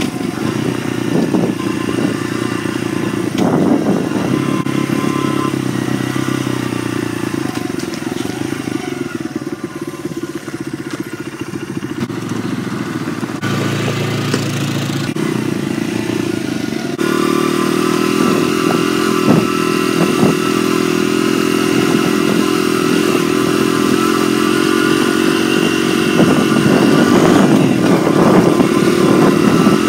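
Dirt bike engine running under way on a gravel road, heard close up from the rider's position. The engine note changes abruptly twice around the middle and climbs near the end as the bike accelerates.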